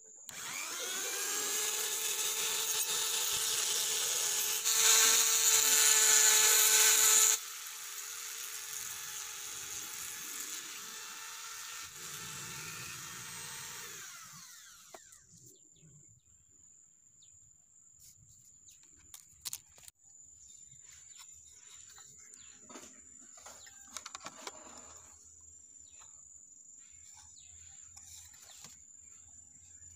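Flexible-shaft mini grinder with a cutting disc running and cutting the metal corners of oval speaker frames. It is loudest for about two and a half seconds around five to seven seconds in, then runs lighter and spins down at about fourteen seconds. Afterwards come faint handling clicks and a steady thin high whine.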